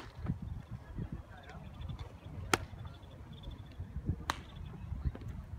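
Baseballs popping into leather gloves during bullpen throwing: two sharp smacks, about a second and a half apart, and fainter pops, over a low rumble of wind on the microphone.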